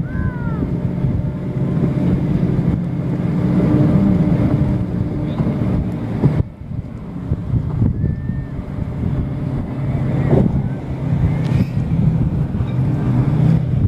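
A motorboat engine running steadily, with wind buffeting the microphone and a few short high calls, near the start and about eight seconds in.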